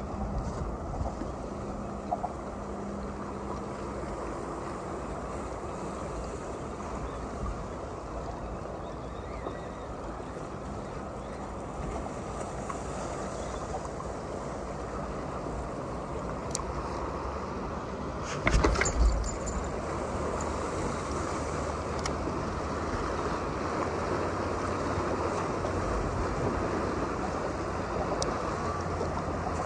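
Steady wind and small waves lapping against a concrete seawall. A brief clatter of knocks comes about two-thirds of the way through.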